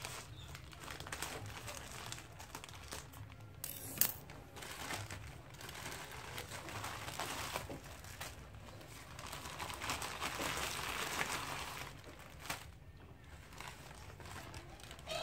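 A black plastic mailer bag crinkling and rustling as it is cut open with scissors and a plastic-wrapped pack and a box are pulled out of it. There is a sharp click about four seconds in.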